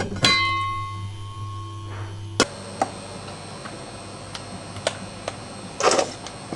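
A metal pot or utensil is struck just after the start and rings with several clear tones that fade over about two seconds, during kitchen cooking. A low hum stops with a sharp click a little later, followed by a few light knocks and a short clatter near the end.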